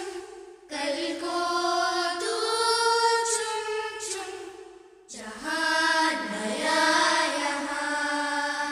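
Music: a slow, chant-like melody sung in long held notes, in a woman's voice. It breaks off briefly about a second in and again about five seconds in.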